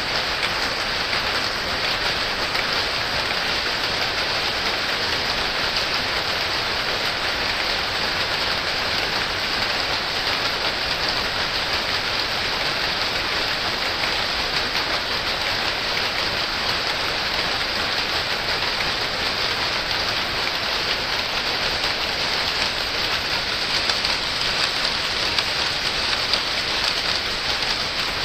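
Rows of shuttle power looms running together, their many overlapping strokes merging into a dense, steady clatter that stays even throughout.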